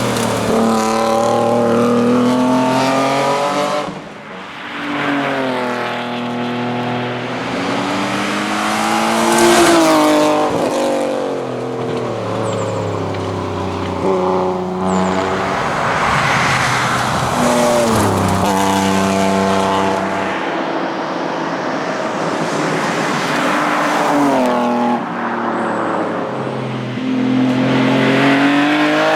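BMW 325e rally car's straight-six engine at high revs, pitch climbing and dropping again and again through gear changes and lifts, with a few abrupt breaks where the sound changes suddenly.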